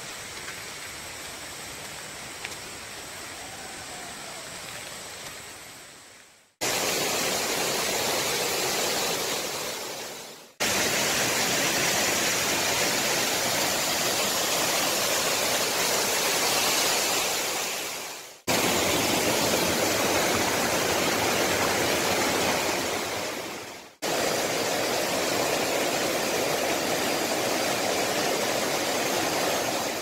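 Rushing water of a cascading waterfall, a loud steady roar in several takes that each fade out and cut sharply to the next. The first few seconds are quieter and steadier.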